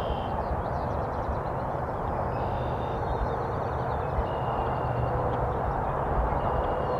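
Steady low rushing background noise in an open field, with faint songbirds chirping and trilling over it.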